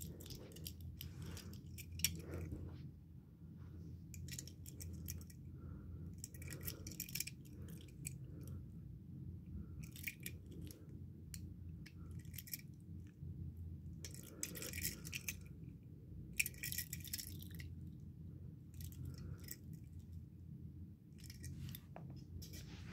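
Handling noise from small toy cars turned and held in the fingers: short spells of light clicks and rustles every few seconds, over a steady low hum.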